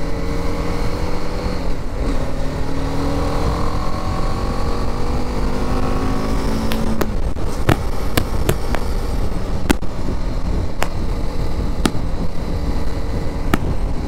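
BMW G 310 GS's single-cylinder engine pulling through a gear over wind rush, its pitch climbing slowly for about seven seconds and then falling away. Several sharp clicks come in the second half.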